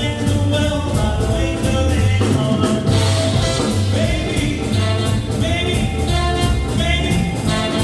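A vintage swing and early R&B band playing live: a steady drum beat under sustained horn and vocal lines.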